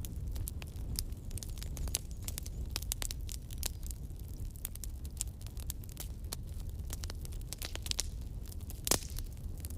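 Campfire crackling: a steady low rumble of burning wood with many irregular sharp pops and snaps, one louder pop near the end.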